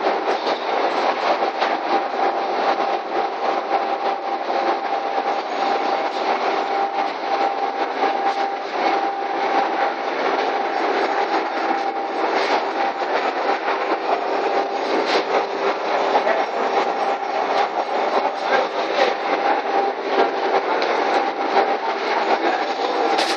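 Belt conveyor bag loader running on its electric motor and gearbox: a steady whine over a dense rattle of belt and rollers, with a few sharper clacks.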